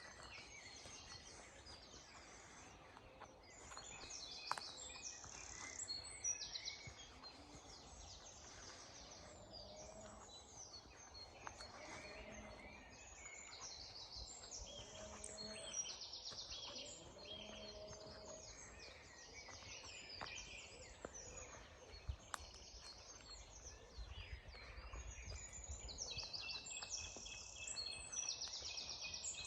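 Several woodland birds singing at once in a morning chorus, overlapping trills and repeated phrases from different birds.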